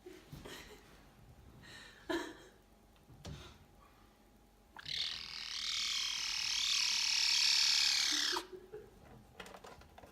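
A small cat's high, squeaky, bat-like voice: a few short faint squeaks, then about five seconds in one long, loud, raspy high-pitched cry lasting about three and a half seconds and wavering in pitch.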